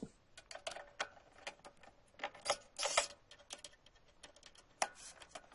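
Cordless screwdriver loosening the screws on a bench sander's metal disc guard: irregular light clicks and small metallic rattles, with a few brief louder bursts.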